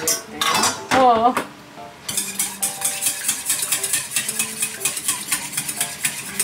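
Fast, even scraping strokes of a mixture being stirred in a bowl, about five a second, starting about two seconds in. Just before, a brief wavering tone is the loudest sound, and light background music plays throughout.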